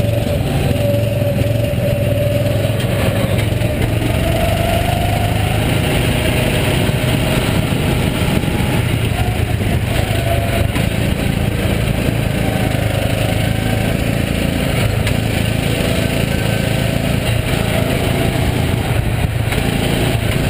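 Go-kart engine running steadily under throttle, loud and continuous, heard on board at racing speed. Another kart's engine note wavers alongside for the first few seconds.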